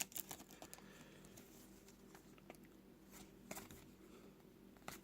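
Faint, scattered clicks and light ticks of trading cards being flipped through by hand, otherwise near silence.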